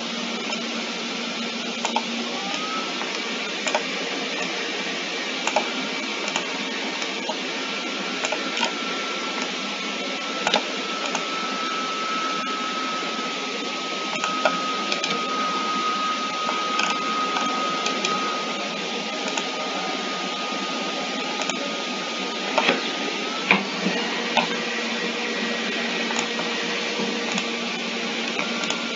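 Steady machine hum and hiss, typical of computer noise picked up by the recording microphone, with a thin whine that sets in early and fades out later after drifting slightly lower. Scattered sharp clicks, likely mouse clicks, punctuate it.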